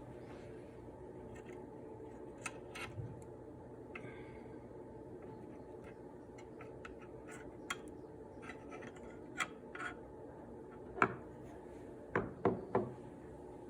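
Scattered clicks and knocks of hard plastic and metal computer parts being handled, over a steady low hum, with a louder knock about eleven seconds in and three quick knocks near the end.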